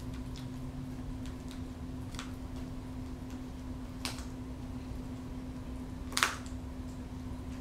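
Peregrine falcon tearing at quail meat with its beak: scattered soft clicks and ticks, with one louder sharp snap about six seconds in. A steady low hum runs underneath.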